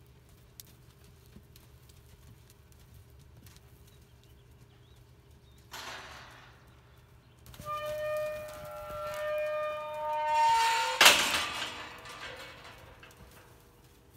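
Horses calling as the herd meets: a short puff of noise about six seconds in, then a long high, pitched whinnying call in the second half that peaks in a loud squeal before fading.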